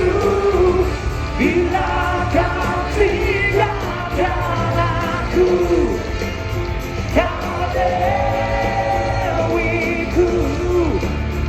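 Live band music played loud through a concert sound system, a singer's voice over heavy bass, with crowd yells mixed in.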